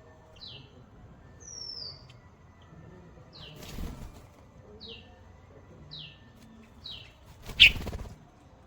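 A small bird repeating short down-slurred chirps about once a second, with one higher gliding note early on. Two brief rustling bursts come about four seconds in and, louder, near the end.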